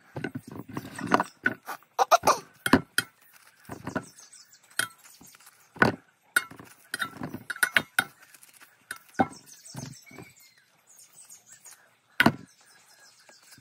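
A knife cutting pieces of meat by hand over a large stainless-steel bowl: irregular clinks and knocks as the blade and the cut pieces hit the metal bowl.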